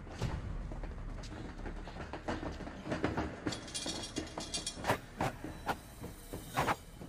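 A heavy chain rattling and clanking as it is hauled over a metal railing, a dense metallic jingle about three and a half seconds in, among scattered knocks and footfalls of men running in. Several sharp hits follow near the end.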